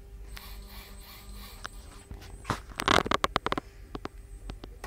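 A hand rubbing and clicking at the front of a metal control panel: a rub about three seconds in, then a quick run of small clicks, over a faint steady hum.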